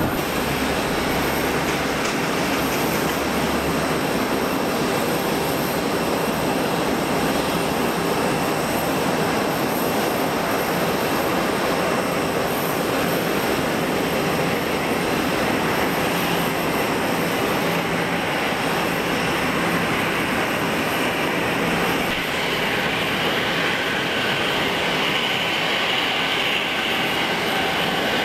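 Airbus A340-300's four CFM56 jet engines running at taxi idle as the airliner rolls along the taxiway, a steady rushing hum. The engine whine grows louder over the last few seconds as it approaches.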